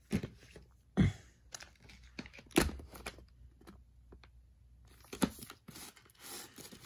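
Plastic VHS clamshell cases being handled and swapped: a handful of sharp clicks and knocks with light rustling of plastic in between.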